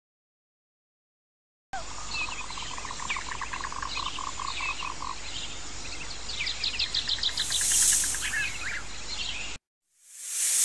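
Silent at first, then about two seconds in a chorus of small animal calls begins: a fast pulsed trill, repeated short chirps and a rapid ticking call, with a brief burst of hiss a little past the middle. Near the end it cuts off and a loud hiss swells up.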